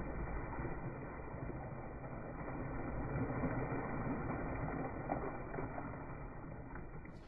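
River water churning and lapping where a swimmer has just jumped in, a steady rushing noise that fades near the end.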